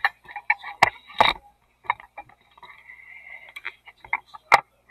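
An irregular string of sharp clicks and knocks with a little rubbing, from a camera and its mount being handled and readjusted. The loudest knocks come about a second in and near the end.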